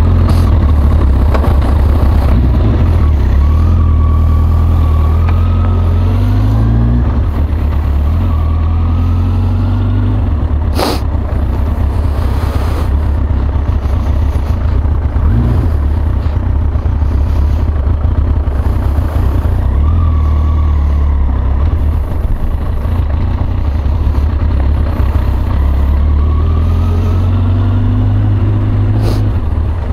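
Yamaha XJ900 Diversion's air-cooled inline-four engine pulling away and accelerating through the gears, the revs rising and dropping back at each shift. A sharp click about eleven seconds in and another near the end.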